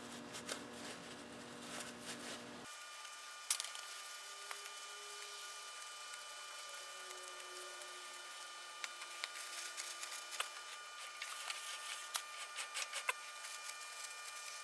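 A shop rag rubbing and wiping over a band saw's metal gear wheel and ring gear, with scattered light clicks of metal, over a faint steady hum.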